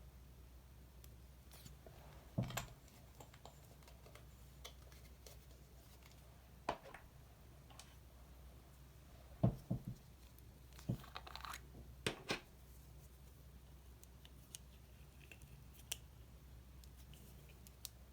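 Slime and small makeup items being handled and mixed: scattered soft clicks, crackles and sticky pops, with a few louder ones clustered around the middle.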